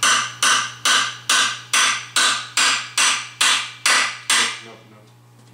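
Hammer blows, evenly paced at about two a second, on the crankcase of a 1955 Zündapp R150S scooter engine, knocking a part out past a tight oil seal; eleven strikes, each ringing briefly, stopping about four and a half seconds in.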